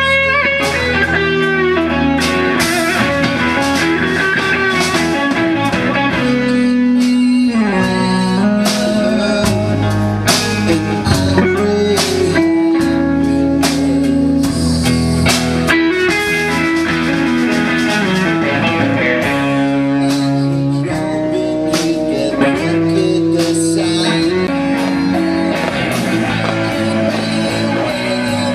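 Live blues-rock band playing: electric guitars and bass guitar over a drum kit.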